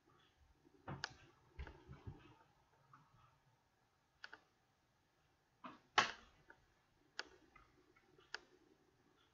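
Faint, scattered clicks and light knocks at irregular intervals, the loudest about six seconds in.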